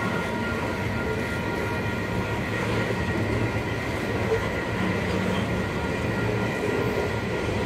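Freight train of tank cars rolling past: a steady rumble and clatter of steel wheels on the rails, with faint steady high tones over it.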